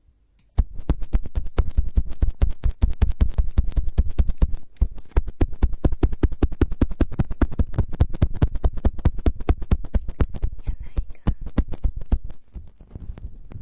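Close-miked ASMR trigger sound: a rapid, dense train of sharp scratching and tapping strokes on the microphone, several a second and heavy in the low end, starting about half a second in, with a brief dip a little before the middle, and fading out near the end.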